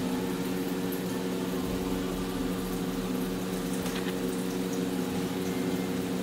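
A steady low hum from a running appliance or machine in the room, made of several even tones, with a few faint ticks about four seconds in.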